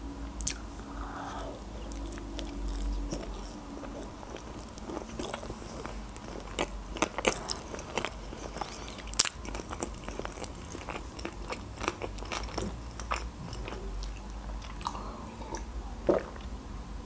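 Close-up mouth sounds of a woman chewing a bite of sushi roll, many small sharp clicks and smacks throughout, with a sip of water from a glass near the end.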